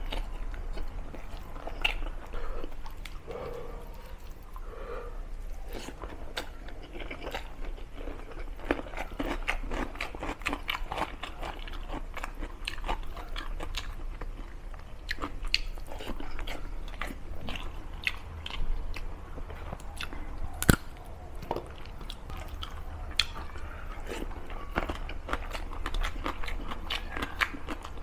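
Close-up chewing and wet mouth sounds of a man eating rice and curry by hand: a steady run of small smacks and clicks, picked up close by a clip-on microphone. One sharp click stands out about twenty seconds in.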